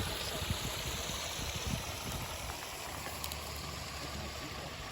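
Small woodland stream pouring over a little waterfall into a pool: steady rushing, splashing water.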